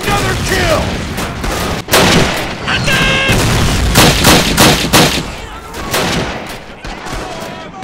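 Battle gunfire: many rifle and machine-gun shots going off in quick, overlapping succession, with shouting voices in between.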